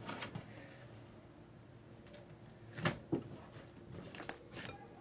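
Quiet handling sounds as slime and its container are worked by hand: a couple of short knocks about three seconds in, then a few softer taps and squishes near the end.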